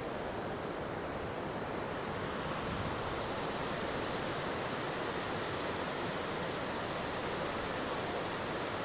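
Steady rushing noise of a fast, wide mountain river's current, with low wind buffeting on the microphone.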